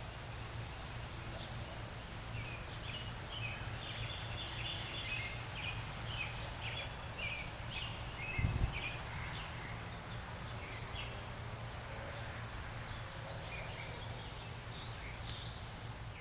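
Outdoor ambience: small birds chirping over a steady low hum, with a dull thump about eight seconds in.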